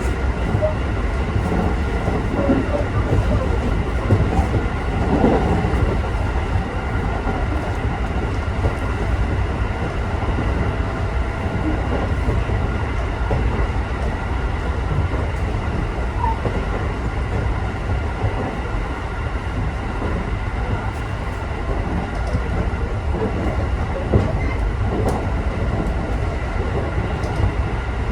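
Local electric train of the Tokaido Main Line running at speed, heard from inside the car: a steady low rumble of wheels on rail, with faint steady tones above it and occasional light clicks.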